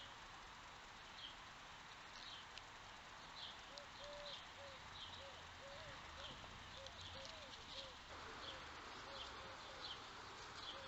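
Faint birdsong: one bird repeats a short high chirp about once or twice a second, and from about four seconds in another gives a quick run of short, lower notes, about three a second.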